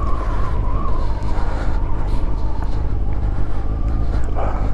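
Motorcycle engine running at low speed as the bike rolls slowly up to a stop, with a steady low rumble.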